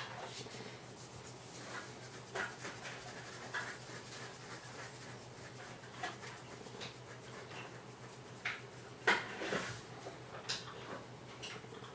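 Irregular light clicks and short rubs from hands working the controls and casing of a radio, the loudest about nine seconds in, over a faint steady low hum.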